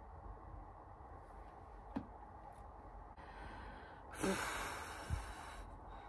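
A woman's long breathy sigh about four seconds in, starting with a short voiced sound and trailing off over about a second and a half. Before it, faint room tone with one small click about two seconds in.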